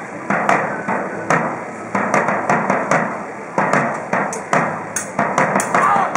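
Swords clashing in a staged historical fencing duel: an irregular run of sharp metallic strikes, two or three a second.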